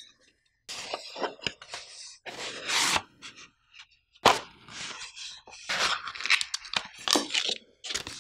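Close-up handling of cardboard and paper packaging: a sleeve slid off a kraft box, the box opened, and card and plastic wrapping rustled and scraped, in short bursts with brief pauses and a sudden sharp sound about four seconds in.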